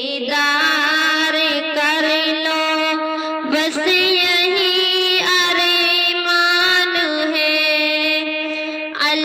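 Female voices singing a slow Urdu farewell song (alvida tarana), drawing out long held notes; the pitch steps up about a third of the way in, drops back later and rises again near the end.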